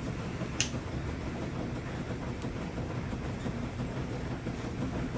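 A click-type torque wrench gives one sharp click about half a second in, the sign that the main cap stud nut has reached its set torque. A steady low rumble runs underneath.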